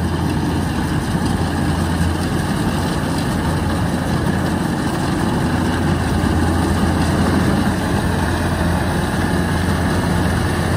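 Kubota DC-105X rice combine harvester running steadily while cutting and threshing: a low, even diesel engine drone with a wide mechanical hiss over it, growing slightly louder as the machine comes closer.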